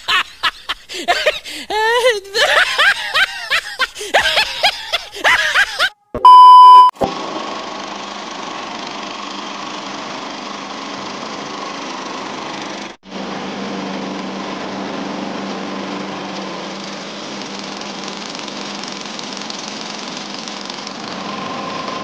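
Choppy voice-like growls and clicks, then about six seconds in a loud one-second beep tone. After that, the engine of a concrete mixer and bucket hoist runs steadily with a low hum, broken by a brief dropout about halfway.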